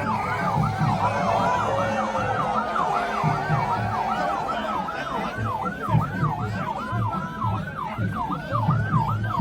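Emergency vehicle siren in yelp mode: a rapid, evenly repeating up-and-down whoop, about three a second.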